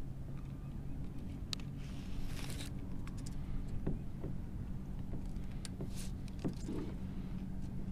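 Scattered light clicks and rattles of a tape measure being pulled out and handled, over a steady low hum.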